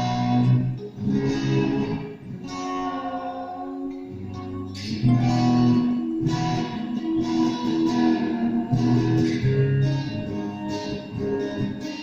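Revelation RJT60 electric guitar played through a Vox Tonelab modelling amp, with loose chords and single notes left to ring. A fresh strummed chord comes in about five seconds in.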